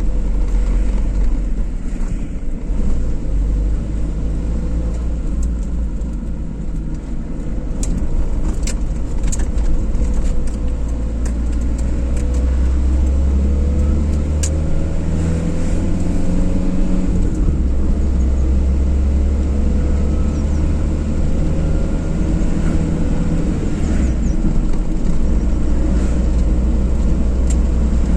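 Car driving: a steady low rumble of engine and road noise, with the engine's pitch rising and falling as the speed changes. A few sharp ticks about a third of the way through.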